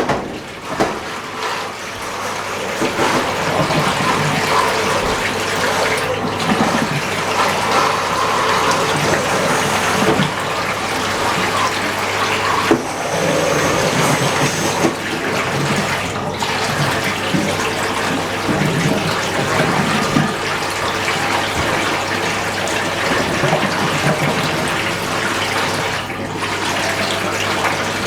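Fisher & Paykel MW512 washing machine with water rushing through it steadily over a low, even hum.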